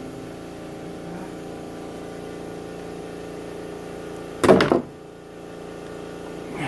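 A steady mechanical hum, with one loud, short noise about four and a half seconds in.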